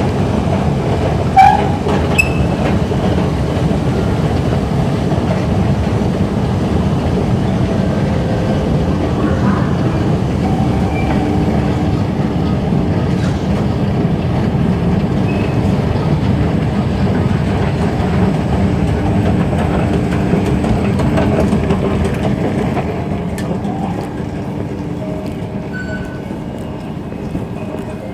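Underground MRT station with a train at the platform below: a steady train rumble, with one sharp short sound about a second and a half in. About three-quarters of the way through it falls to a quieter station hum.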